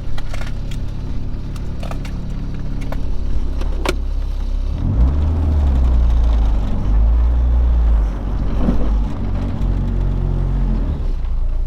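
Honda del Sol running with a steady low engine and road rumble, growing louder from about five seconds in, with a few sharp clicks in the first four seconds.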